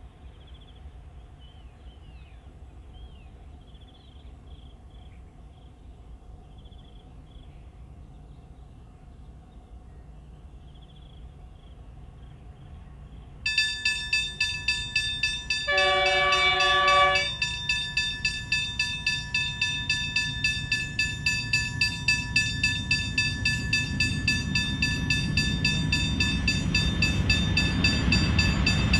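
Faint bird chirps over quiet rural ambience, then about halfway a rapid rhythmic ringing starts suddenly. An approaching freight train led by an NR class diesel-electric locomotive sounds its horn, a chord lasting about a second and a half, and its low rumble grows louder as it nears.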